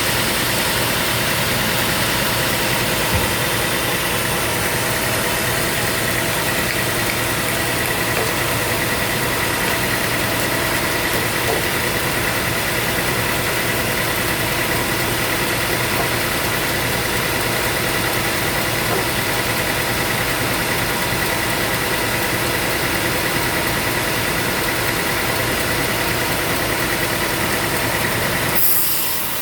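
Sawmill machinery running steadily: a motor drone with a constant high whine held over it. The sound changes abruptly near the end.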